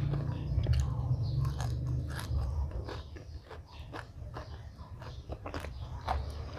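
A person chewing and crunching food close to the microphone, with sharp crunchy clicks at irregular intervals over a steady low hum.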